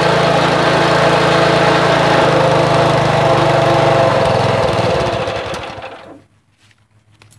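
Small gasoline engine of a Craftsman 27-ton log splitter running steadily, then shut off by hand about four seconds in: it slows unevenly and dies away about six seconds in.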